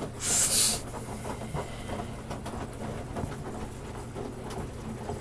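Samsung Grande washing machine running on its standard cycle, a steady low hum with small irregular clicks. A short loud hiss comes about a quarter second in.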